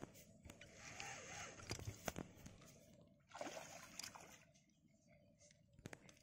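Faint splashing and sloshing of a hooked fish at the water's surface as it is drawn in to the bank on a line, with a few sharp clicks.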